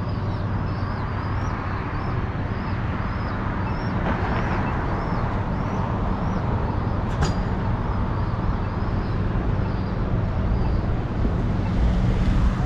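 Downtown street ambience: a steady hum of traffic and city noise. Through the first part a high chirp repeats about one and a half times a second, and there is a single sharp click about seven seconds in.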